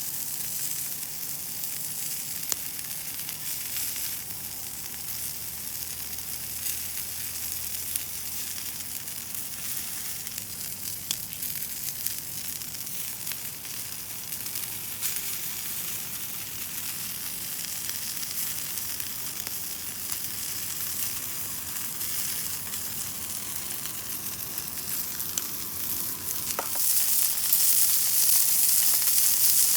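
Pork-belly meat rolls sizzling as they fry over a wood fire, a steady hiss with scattered small pops. The sizzle grows louder near the end.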